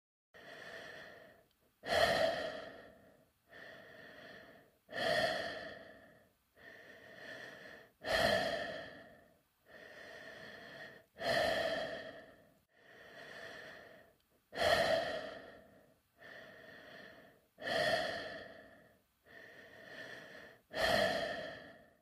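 A person breathing slowly and regularly inside a space helmet, heard from within the helmet. The breathing comes in seven cycles, each a softer breath followed by a louder one that starts suddenly and fades away.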